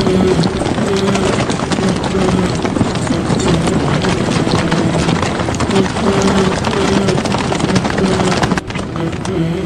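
Battle sound effects: many horses galloping, their hoofbeats dense and continuous, with men's shouts held over them. The din dips briefly near the end.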